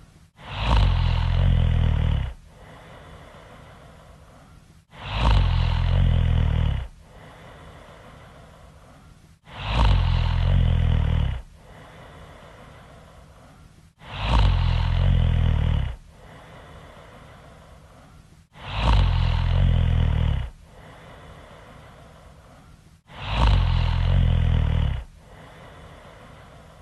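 Loud snoring in a very even rhythm: six long, rasping snores, each about two seconds long and coming about every four and a half seconds, with a much quieter breath between them.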